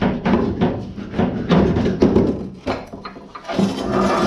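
Background music: a pitched melody in short held notes over a percussive beat.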